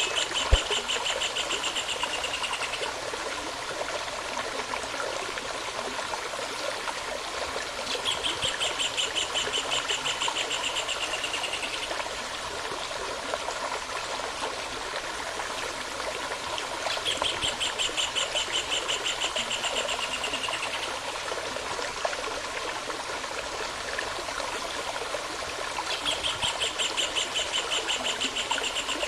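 Stream running steadily, with a bird repeating a rapid, even trill of about three seconds roughly every nine seconds.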